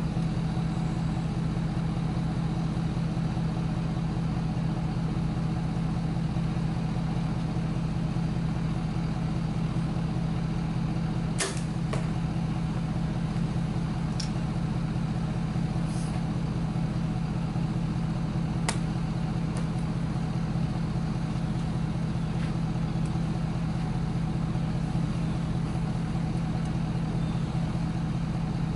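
Idling truck engine as a steady low rumble throughout, with a sharp snap about eleven seconds in as a Mathews Triax compound bow is shot, followed by a few fainter clicks.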